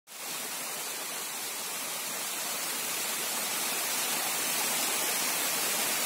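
Small waterfall cascading over rocks: a steady rushing hiss of falling water.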